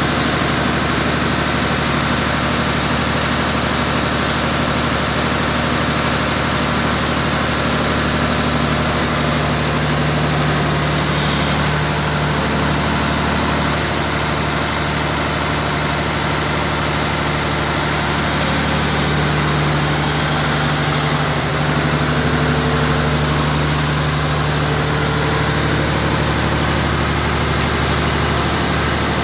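Diesel engine of a Wirtgen 1000C cold milling machine running steadily at idle, with a brief hiss about eleven seconds in.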